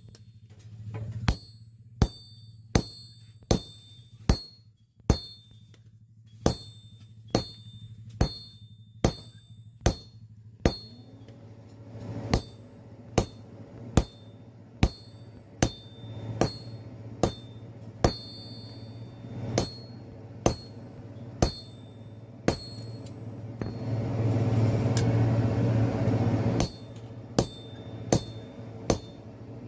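Blacksmith's hammer striking steel in a steady series of ringing blows, a little over one a second, over a low steady hum; the steel is being cut. Near the end a louder rushing noise comes in for about three seconds while the blows go on.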